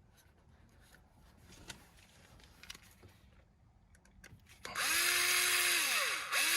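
Power screwdriver driving the small T10 Torx screws back into the steering-wheel button assembly. After a few faint handling clicks, the motor spins up for about a second and a half, pitch rising then falling, stops briefly, and starts a second run near the end.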